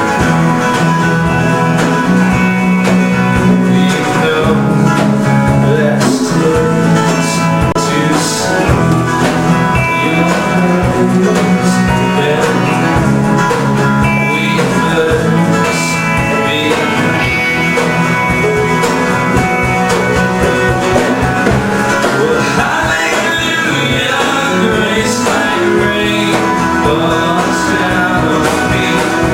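Live full band playing an instrumental passage of a worship song: guitars over a steady bass line and drums, with a country-bluegrass feel.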